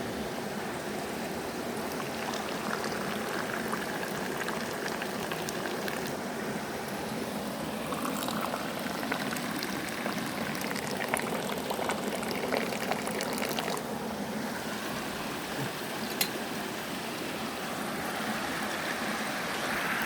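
Stream water running steadily, with a few light clicks over it and one sharper tick about sixteen seconds in.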